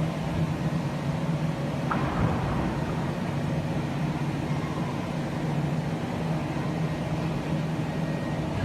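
A steady low machine hum under an even background din, unchanging throughout, with one brief faint tick about two seconds in.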